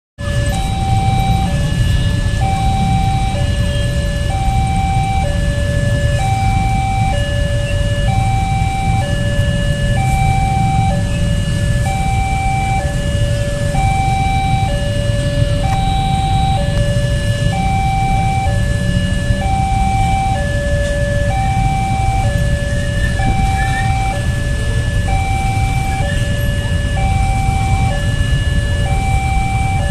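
Railway level-crossing warning alarm sounding: an electronic two-tone signal that alternates high and low about once a second, repeating steadily. Under it runs a steady low rumble of waiting traffic.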